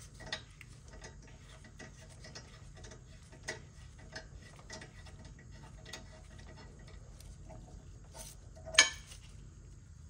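Hand ratchet clicking in irregular runs as it works a brake caliper bolt loose. A single sharp metallic clank stands out near the end.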